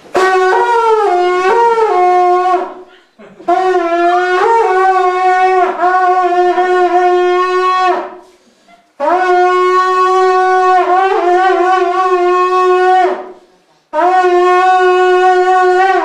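Tibetan long horns sounding four long held blasts on one bright, steady note rich in overtones, each blast opening with a few wavering dips in pitch before settling, with brief breaths between them.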